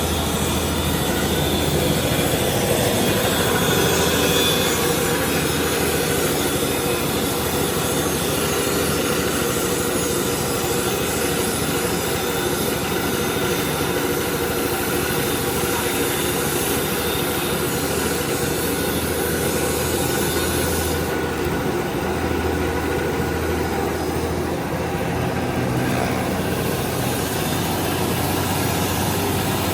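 Mini corn sheller running under a Honda GX200 6.5 hp single-cylinder petrol engine: a steady engine hum under the dense rattling noise of the machine, with the highest part easing off for a few seconds past the middle.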